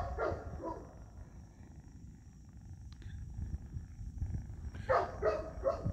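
Kitten purring steadily in a low rumble while held down for bot fly larva removal; she is purring but not liking it. A few short, high-pitched voice sounds break in at the start and again about five seconds in.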